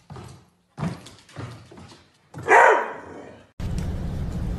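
A dog barking, with one loud bark about two and a half seconds in among shorter, quieter sounds. Near the end the sound cuts to a steady low hum.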